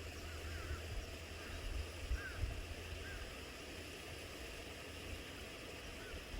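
Outdoor forest ambience: a steady low wind rumble, with short, faint bird chirps now and then.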